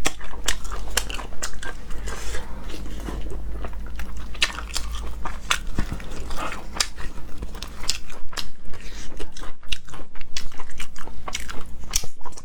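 A person eating close to the microphone: crunching bites and chewing, with many sharp clicks and cracks.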